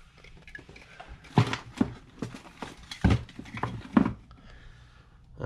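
Hard plastic knocks and clatter as 3D-printed organizers are picked up, moved and set down on the workbench, with several sharp knocks.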